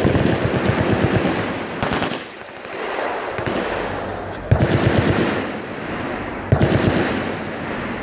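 Machine guns firing long rapid bursts of automatic fire together from the firing line, swelling up in fresh volleys about four and a half and six and a half seconds in, with a short lull in between.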